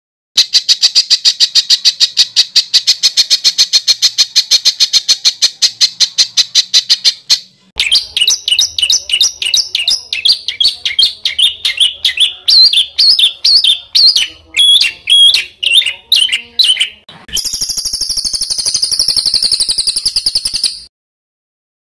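Songbird song edited for training competition birds: a long fast run of rapidly repeated high notes, then a string of varied whistled notes sliding up and down, then another fast rattling run. Each part starts and stops abruptly, as cut together from separate recordings.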